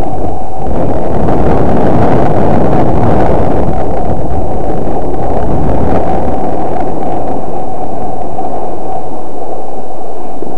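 Wind rushing over a moving camera's microphone during a snowboard descent: a loud, steady, rumbling noise with no clear pitch.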